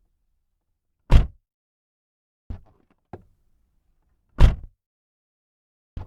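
Car door being opened and shut: two loud thuds as the door slams closed, about three seconds apart, with quieter latch clicks between them and another click near the end as it is opened again.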